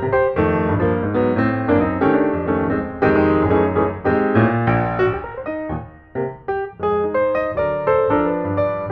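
Background music played on piano: a quick run of notes, briefly dropping away about six seconds in.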